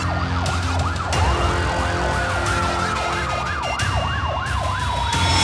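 Two ambulance sirens sounding together: one sweeping rapidly up and down about three times a second, the other rising about a second in and then gliding slowly down in pitch.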